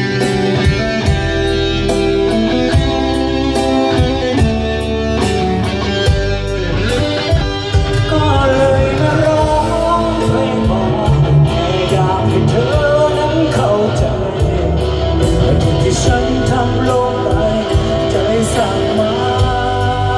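Rock song played live: electric guitar through an amplifier, joined from about eight seconds in by a singer's voice through a handheld microphone.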